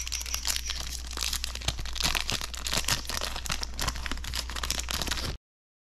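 Foil wrapper of a Magic: The Gathering Double Masters 2022 draft booster pack crinkling and tearing as it is ripped open by hand, with the cards sliding out of it. The sound cuts off abruptly near the end.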